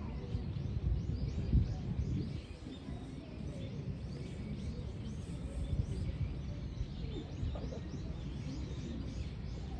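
Small birds chirping in quick, repeated short calls over a steady low rumble of background noise with faint distant voices. A single thump about a second and a half in.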